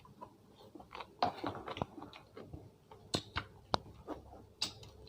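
A person chewing food up close, with irregular short crunches and wet mouth clicks.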